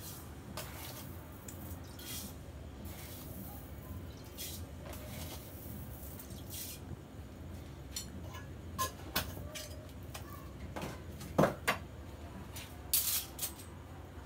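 Scattered clinks and light clatter of a steel spoon against a steel cup and a steel pot as sugar is spooned into milk, with a few louder clinks in the second half.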